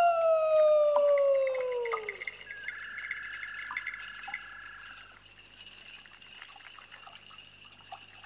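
A rooster crowing, its long last note falling in pitch and ending about two seconds in. Fainter rapid chirps and a steady whistling tone follow, then it fades low.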